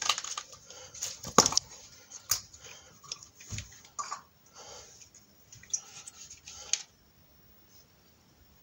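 Aerosol can of copper grease spraying in short hissing bursts, mixed with clicks and knocks of the can and tools being handled. It all stops about seven seconds in.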